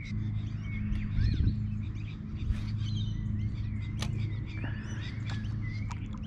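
Small birds chirping and calling throughout, over a steady low hum, with a few sharp clicks scattered through.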